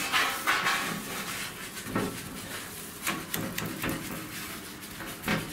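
Paintbrush scrubbing primer onto the underside of a metal shelf, in a few irregular rasping strokes.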